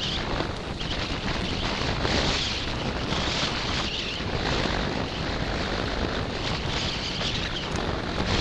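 Wind buffeting the microphone of a handlebar camera on a moving bicycle: a loud, steady rumbling roar with hiss that swells and eases every second or two.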